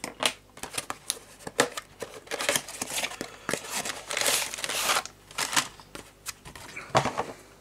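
Crinkling and rustling of packaging, with scattered clicks and taps, as a plastic model kit's box is opened and its contents are handled.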